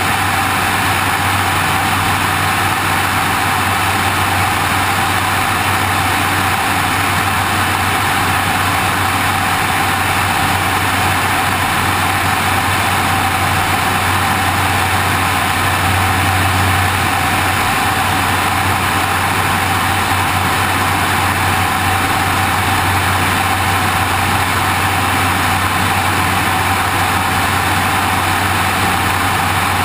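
Steady drone of a light aircraft's engine and propeller in flight, mixed with wind rushing over the wing-mounted camera.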